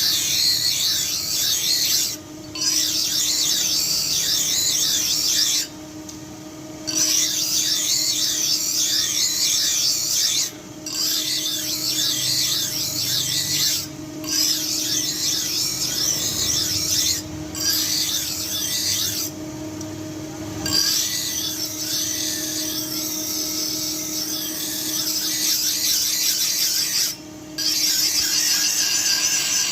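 Steel cobbler's tool being worked against an abrasive: a continuous scraping hiss broken by about seven short pauses, over a steady low hum.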